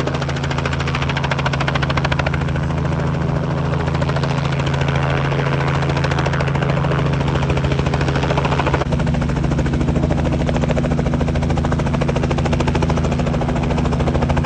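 Two-bladed Robinson helicopter hovering close and low: a steady engine drone with fast, even rotor chop. The sound changes abruptly about nine seconds in.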